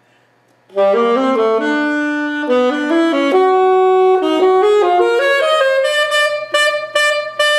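Solo saxophone playing a Latin-style jazz phrase in straight eighth notes. It comes in about a second in with smooth, connected notes climbing and swelling, then ends with a string of short, separately tongued repeated notes.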